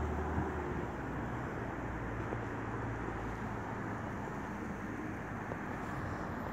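Steady outdoor wind noise, with a low hum of road traffic under it.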